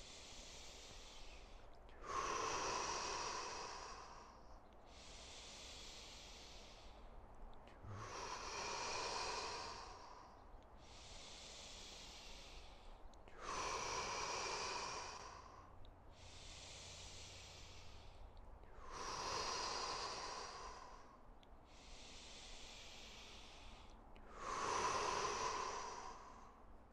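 A man's slow, paced breathing, about five full breaths. Quieter, hissy inhales alternate with louder, breathy exhales out through the mouth, each about two seconds long.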